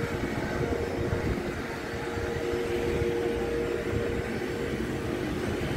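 Steady hum of the ship's ventilation machinery, with one held tone and a second, lower tone that comes and goes, over a low, uneven rumble.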